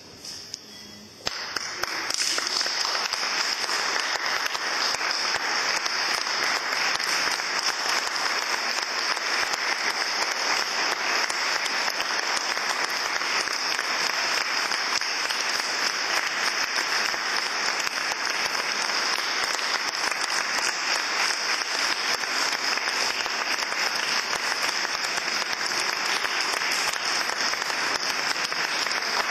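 Audience applauding: dense, steady clapping that starts about a second in and keeps up.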